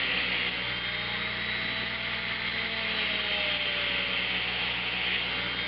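Dremel rotary tool running with a small wire brush held against switch contacts, scrubbing oxidation off them. It makes a steady motor whine whose pitch drifts a little, over a scratchy hiss from the brush.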